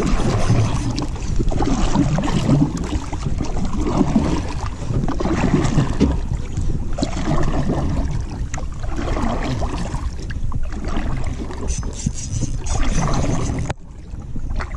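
Water sloshing and splashing against the hull of a small wooden boat as it is paddled, with a steady low rumble under it; the sound drops off suddenly near the end.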